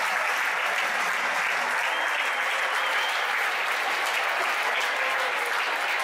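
Football stadium crowd applauding a goal, a steady dense wash of clapping.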